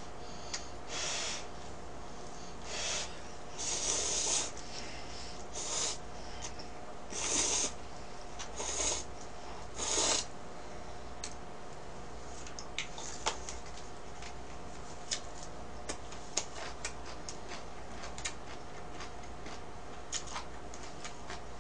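A person slurping instant ramen noodles: about seven loud, hissy slurps in the first ten seconds, then quieter chewing with scattered light clicks.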